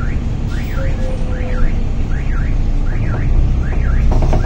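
Low running rumble heard from inside a Higer B80KL city bus, with an electronic alarm tone warbling up and down over and over, about once every 0.8 s. A short rattle of clicks comes near the end.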